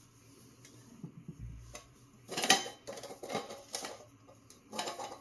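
A series of light metal clinks and knocks from a camping pot and stove stand being handled and set over a lit alcohol spirit burner.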